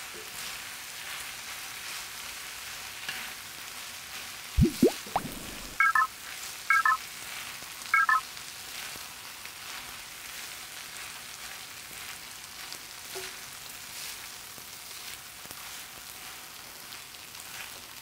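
Kimchi fried rice sizzling softly in a wide pan while it is stirred and turned with a wooden spatula and chopsticks, with light scraping and ticks. About four and a half seconds in, an added sound effect: a quick rising sweep, then three short electronic beeps about a second apart, the sound of an on-screen subscribe button.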